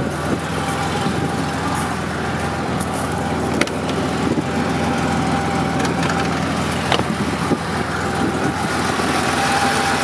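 Porsche 911 SC's air-cooled 3.0-litre flat-six idling steadily, with two sharp clicks partway through.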